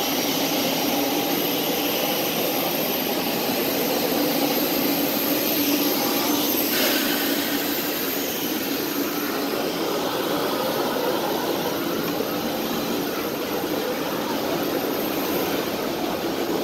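Jet airliner engines running on an airport apron: a steady roar with a thin high whistle over it.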